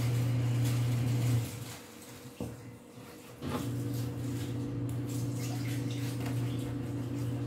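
Kitchen knife slicing milkfish fillet on a cutting board, the blade knocking on the board a few times, over a steady low hum that drops out for about two seconds and then comes back.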